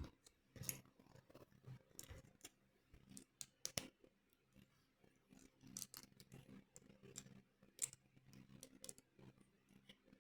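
Faint, scattered clicks and light taps of plastic LEGO pieces being handled and pressed together, the sharpest a little before four seconds in and again near eight seconds in.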